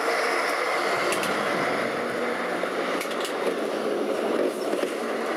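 Lisbon tram running along its street track, heard from inside the car: a steady rolling noise of wheels on rails with a few sharp clicks. A low steady hum joins in about two seconds in.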